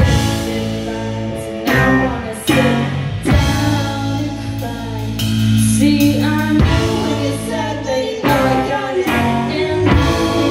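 A live rock band playing: electric guitars and a drum kit, with a woman singing, and cymbal crashes landing every second or two.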